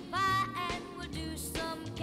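Background music: a melody line over bass notes with a steady beat about twice a second.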